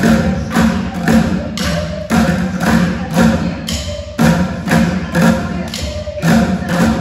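A group of drummers playing upturned plastic buckets with drumsticks together in unison, keeping a steady beat of about two strong strokes a second with lighter strokes between.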